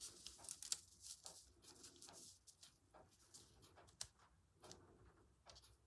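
Faint rustling and light taps of tracing paper and fabric being handled and laid down.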